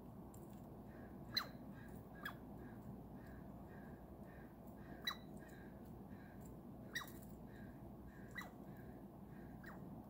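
Six short high chirps, each falling sharply in pitch, spaced one to two seconds apart over a faint steady background.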